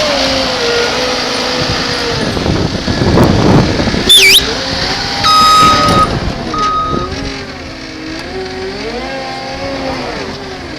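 Skid steer engine running with the mulcher attachment, its speed rising and falling. About three seconds in it gets louder and rougher, just after four seconds there is a sharp high swooping squeal, and two steady beeps follow.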